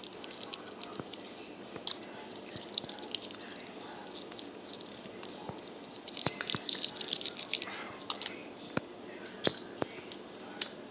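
Small plastic sauce packets being handled and pulled open: crinkling and rustling with scattered sharp clicks and taps, busiest a little past the middle.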